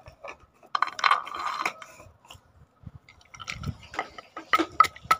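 Wooden pestle pounding and crushing nuts (cashews, almonds, pistachios, walnuts) in a wooden mortar: irregular knocks and crunching, settling into a steady beat of about three strikes a second near the end.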